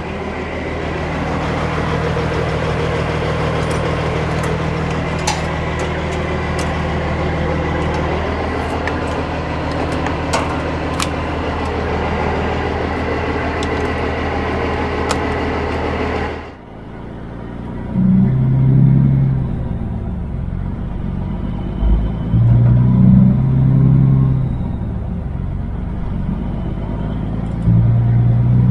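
A loud, steady diesel engine runs close by, with a few sharp metallic clicks and knocks as the trailer's air-line couplings are handled. About two-thirds of the way in the sound cuts off suddenly to the inside of a Kenworth W900 semi truck's cab, where the engine rumbles and rises in revs three times as the truck pulls away.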